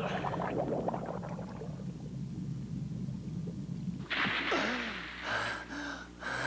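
Cartoon sound effects: a steady low rumble, then about four seconds in a sudden loud rushing whoosh with a shout in it.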